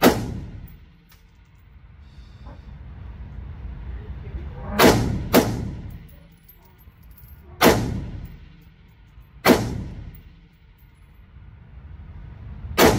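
Six shots from a Daniel Defense DDM4V7 AR-15 rifle in 5.56, each followed by an echoing tail. Two come in quick succession, about half a second apart, near five seconds in; the others are spaced two to three seconds apart.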